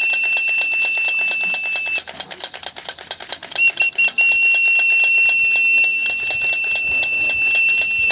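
A whistle blown in long, steady high blasts to call racing pigeons down to the loft. One long blast breaks off about two seconds in, three short toots follow about a second and a half later, then another long blast.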